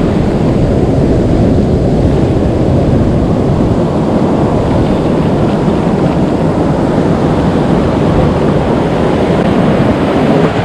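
Steady wind rumble on the microphone over surf washing and foaming around the shallows.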